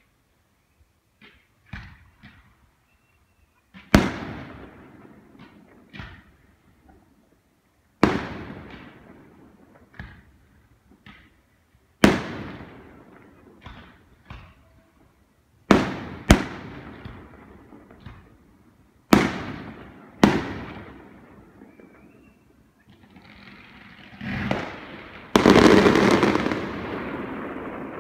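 Fireworks display: aerial shells bursting with sharp bangs about every four seconds, each followed by a long fading tail, with smaller pops in between. Near the end the bursts run together into one continuous, loudest barrage.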